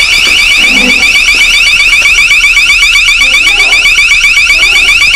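Motion-sensor alarm going off: a loud electronic siren made of short rising chirps repeated rapidly and evenly. It has been triggered by movement on the stairs.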